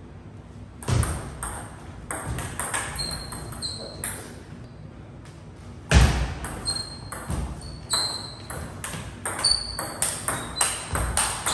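Table tennis ball clicking off the paddles and the table in quick rallies. There is a heavy thud about six seconds in, after which the hits come faster, roughly three a second.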